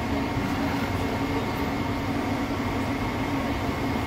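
Commercial kitchen exhaust hood fan running: a steady rushing drone with a constant hum underneath.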